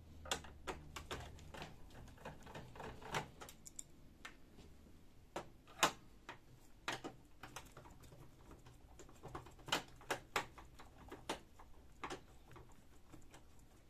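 Irregular light clicks and ticks of a hand screwdriver working the screws out of a laser printer's back panel, with a few sharper clicks around the middle and a little after.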